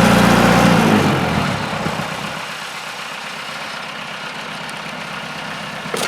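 A heavy vehicle engine running loudly, then falling away about a second in to a quieter steady rumble, with a single knock near the end.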